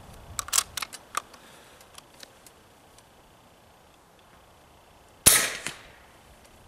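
Integrally suppressed Hatsan Carnivore .35-calibre PCP air rifle: a few sharp clicks as the bolt is worked in the first second, then a single suppressed shot about five seconds in, a sudden crack with a short tail.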